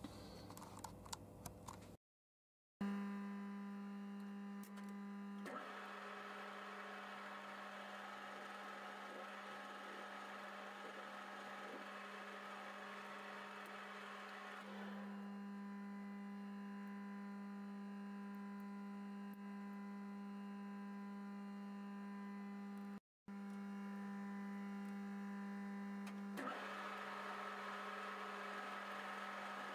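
A few light clicks, then the Harrison M300 lathe running with its chuck spinning a workpiece while a drill is fed into it: a steady motor hum with a whine over it.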